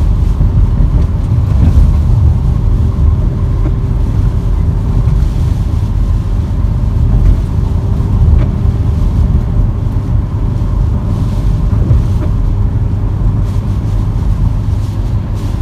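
Steady low rumble of a Nissan X-Trail being driven, heard from inside the cabin, with a faint steady hum through most of it.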